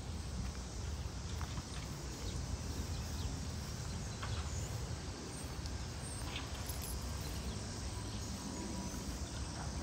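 Outdoor ambience while walking across grass: a low steady rumble, soft footsteps and a few faint, scattered chirps.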